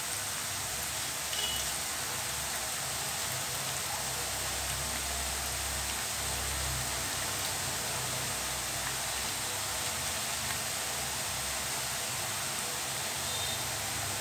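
Hot oil sizzling steadily as drops of gram-flour batter deep-fry into boondi.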